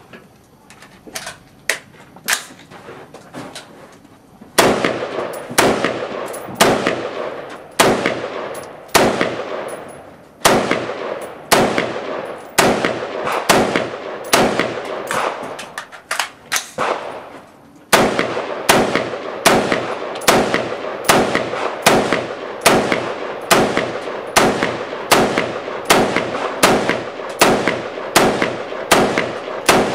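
AR-15-style semi-automatic rifle fired in a long steady string, one sharp shot about every second, quickening slightly in the second half, each shot trailing a short echo. The firing starts about four and a half seconds in, after a few quieter clicks and knocks.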